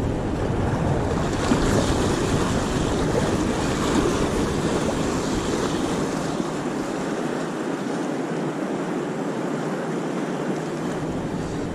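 Sea surf washing on the beach, a steady wash of noise, with wind buffeting the microphone; the low wind rumble drops away a little past halfway and returns near the end.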